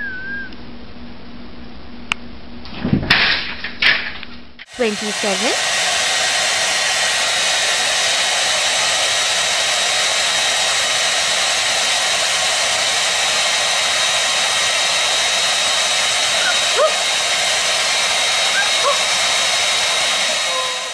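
A few short knocks, then a handheld hair dryer starts about five seconds in and blows steadily for the rest of the time with an even rushing noise.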